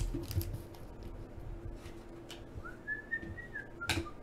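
A person whistling a few soft notes, a short phrase that rises and then steps down, starting about two-thirds of the way in. Under it are light clicks and rustles of card packs being handled, with a sharper tap near the end.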